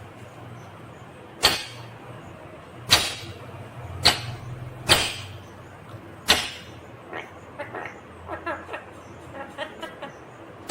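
Ringneck parrot giving five sharp, loud shrieks over about five seconds, then softer quick chattering.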